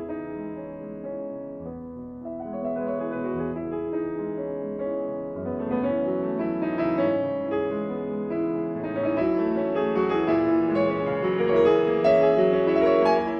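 Background piano music that grows fuller and louder from about five seconds in.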